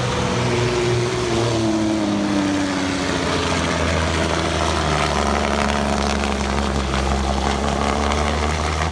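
A farm tractor's engine pulling at full throttle in a tractor pull. Its pitch drops over the first few seconds as it loads down under the sled, then it runs steady.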